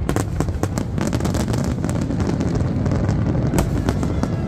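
Fireworks display: many aerial shells bursting in quick succession, sharp bangs and crackles over a continuous low rumble.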